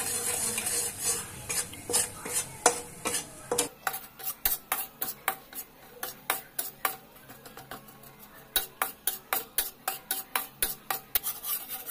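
Spatula stirring and scraping gram flour (besan) frying in oil in a kadhai. The oil sizzles over the first few seconds, then comes a quick run of scrapes, about two or three a second.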